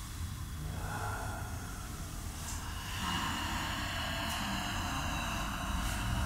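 Voices of a vocal improvisation ensemble, faint at first, then from about three seconds in a long, high, held tone as the singers begin wolf-like howling.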